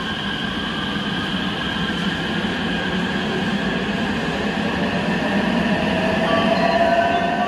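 Freight train running through an underground station, wheels rolling on the rails with steady high whining tones over the running noise, growing somewhat louder toward the end.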